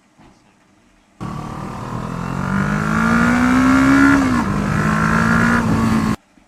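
Motorcycle engine accelerating hard, its loud exhaust note rising in pitch, then dropping at a gear change and holding steady. It starts and cuts off suddenly.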